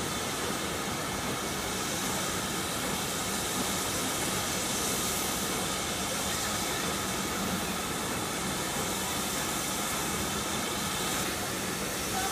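Steam locomotive hissing steadily at a distance, a continuous even hiss with no chuffs or whistle.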